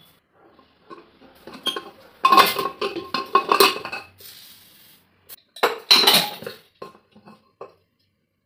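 An aluminium pressure cooker being opened: a run of metal clanks and rattles as the lid is worked off, a second clatter a few seconds later, then a spoon knocking and scraping inside the pot.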